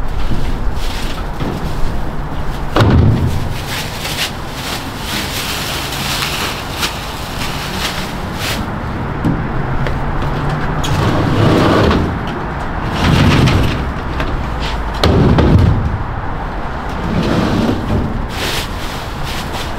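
Soda cases being pulled from a delivery truck's side bay and handled: a run of clicks, knocks and clatter with several louder bumps, over a steady low hum.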